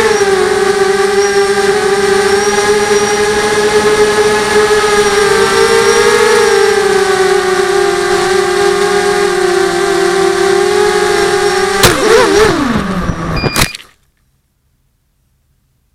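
Electric motor and propeller of an FPV model aircraft whining steadily, heard through the onboard camera, the pitch shifting slightly with the throttle. About twelve seconds in come knocks and a wavering, falling pitch as the aircraft hits the ground, then the sound cuts off abruptly.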